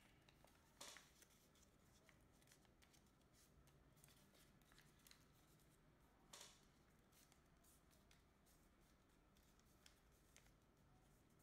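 Faint rustling and crackling of origami paper being creased and handled by fingers, in a few brief bursts, the clearest about a second in and about six seconds in.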